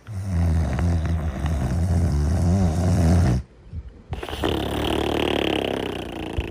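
Cartoon character snoring. A long, low-pitched snore lasts about three seconds, then comes a short pause and a second, breathier snore with more hiss.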